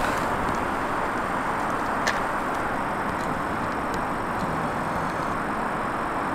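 Steady vehicle noise, a car running, with one short click about two seconds in.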